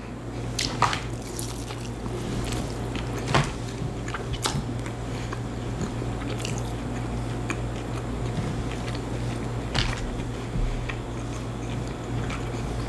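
A person chewing a fried chicken strip close to the microphone: wet mouth sounds and scattered small clicks and crunches, over a steady low hum.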